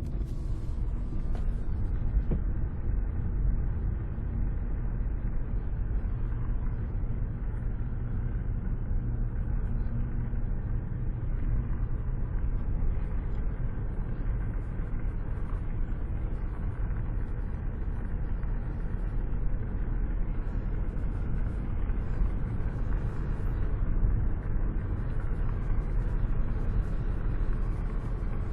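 Car cruising at a steady speed, heard from inside with a window open: a steady low rumble of wind and road noise.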